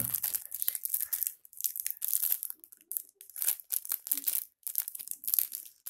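Clear plastic packaging crinkling in irregular bursts as a bagged phone screen protector is handled and turned over.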